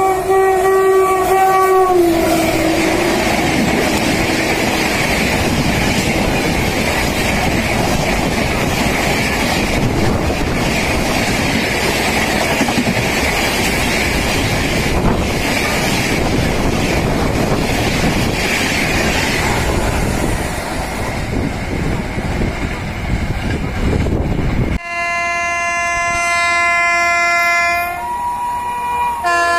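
A train horn sounding as an express approaches, its pitch dropping as it passes, then the loud, steady rumble and clatter of a Rajdhani Express's coaches passing at speed. About 25 s in, the sound cuts to another train's horn, which changes pitch twice near the end.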